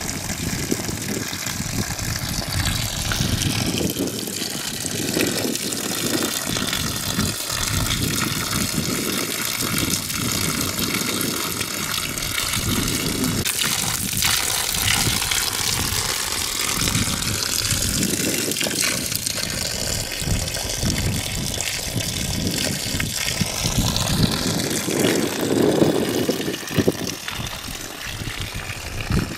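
A steady stream of water pouring from a fountain pipe and splashing into a livestock watering trough and onto stones.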